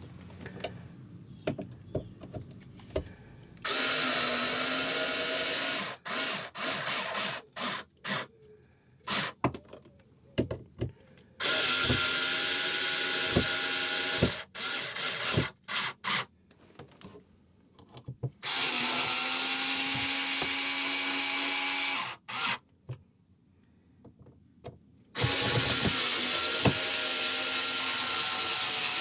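Small cordless screwdriver driving screws through a speaker grille into a plastic dashboard: four runs of two to four seconds each, the motor's whine bending up in pitch as it starts, with clicks and handling noise between runs.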